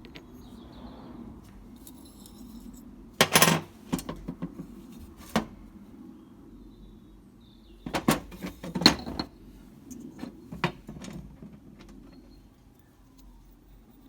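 Metal parts and tools clinking and knocking as a turbocharger is taken apart, in two clusters of sharp clinks about four seconds apart, over a low steady hum.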